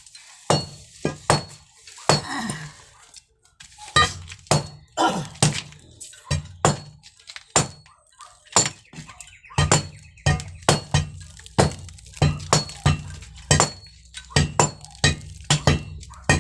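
A hand tool striking hard masonry over and over in sharp, clinking blows. The blows are irregular, with a short pause about three seconds in, and come about two a second later on.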